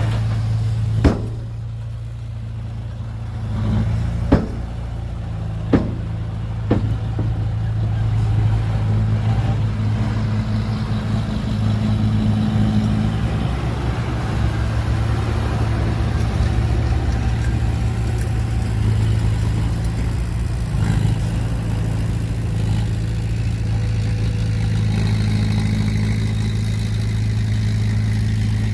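Diesel engine of heavy earthmoving equipment running steadily, with four sharp knocks in the first seven seconds.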